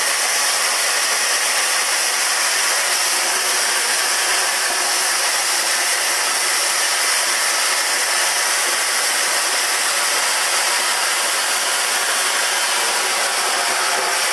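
Compressed-air gunite spraying: a steady, loud hiss of air and dry sand-and-cement mortar blasting from the nozzle of a SOVA gunite machine fed by a 375 cfm compressor.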